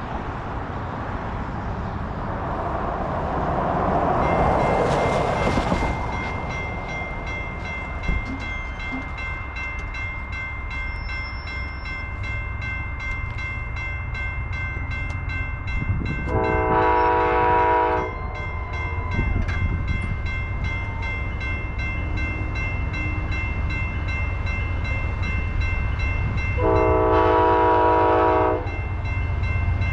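Grade-crossing warning bells start ringing about four seconds in, just as a car passes, and keep ringing while the gates lower. An approaching Amtrak train sounds its locomotive air horn in two long blasts, one a little past halfway and one near the end, over a growing low rumble.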